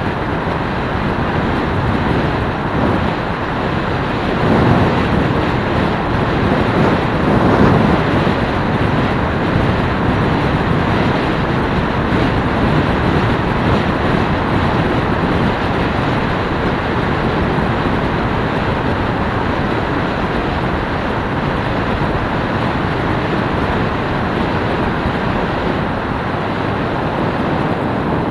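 Small motorcycle riding along a road, heard mostly as a steady rush of wind on the microphone with engine and tyre noise mixed in. It swells briefly about four and a half and seven and a half seconds in.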